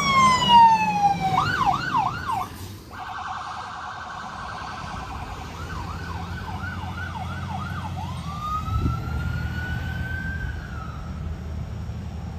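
Electronic sirens on passing fire apparatus cycling through their tones: a falling wail, a quick yelp, a rapid warble, more yelps, then a slow rising wail near the end. Truck engines rumble underneath. The sound is loudest in the first few seconds as the nearest truck goes by, then drops.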